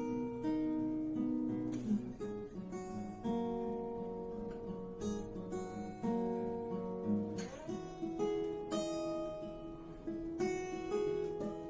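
Solo acoustic guitar playing an instrumental intro: chords struck every second or two and left ringing, with the notes changing from chord to chord.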